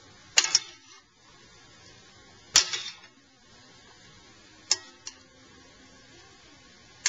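Metal kitchen tongs clacking against a steel sauté pan and a glass plate as calamari is moved from one to the other: a few sharp, separate clicks, a double one about half a second in, the loudest about two and a half seconds in, and two more close together near five seconds, over a faint steady hiss.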